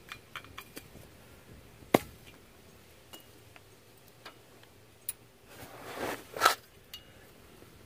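Hand wrench working on a tight suspension bolt under a truck: scattered metal clicks and one sharp knock about two seconds in, then a short rushing noise about six seconds in.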